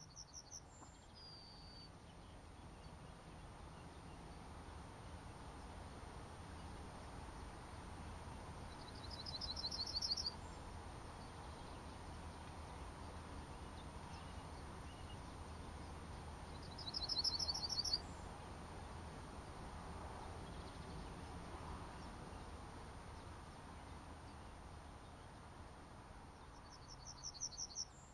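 Male yellowhammer singing: three songs several seconds apart, plus the end of one right at the start. Each song is a quick run of repeated high chirps closed by a separate final note, the 'little bit of bread and no cheese' phrase. A steady low background hum runs underneath.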